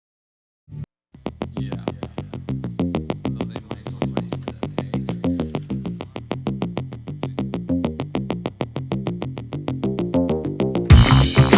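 Background electronic music with a quick, steady beat, starting about a second in and getting louder and fuller near the end.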